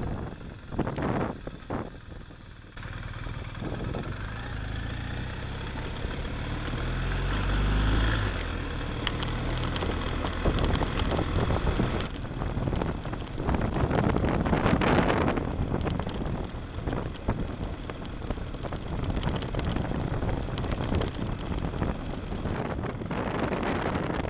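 Motorcycle engine running under way, climbing in pitch as it accelerates, with wind rushing over the camera microphone. The sound changes abruptly about 3 and 12 seconds in.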